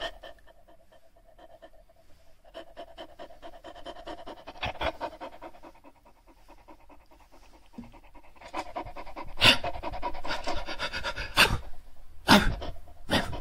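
Shar Pei dog panting in quick, short breaths, louder in the second half. Near the end there are a few sharp, louder puffs.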